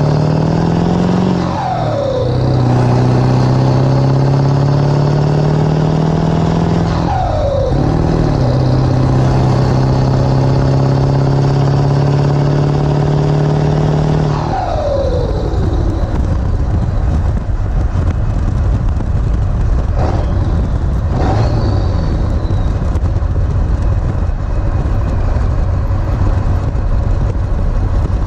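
Ford 7.3 Powerstroke V8 turbo-diesel accelerating hard, its pitch climbing through the gears and dropping at two upshifts, each with a falling whistle. About halfway through the engine note gives way to steady road and wind noise.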